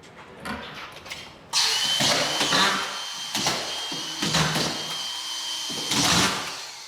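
Power screw gun running with a steady high whine, starting suddenly about a second and a half in, with several louder surges as screws are driven into the drywall sheet, then stopping near the end.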